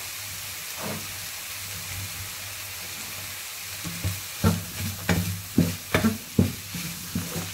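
Chicken, egg, peas and carrots frying in a pan, a steady sizzling hiss. From about halfway in, a wooden spatula stirs the food and knocks against the pan in repeated sharp strokes.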